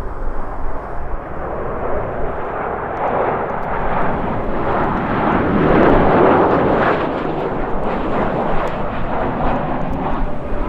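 Jet airliner passing, its engine roar swelling to a peak about six seconds in and then easing off, with strong gusty wind rumbling on the microphone underneath.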